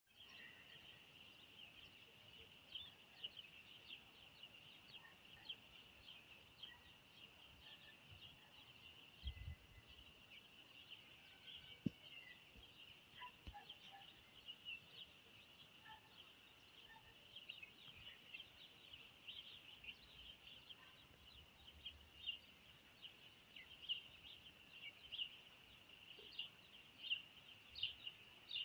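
Faint chorus of small birds chirping, a continuous high twittering with many short irregular chirps, and a single soft low thud about a third of the way in.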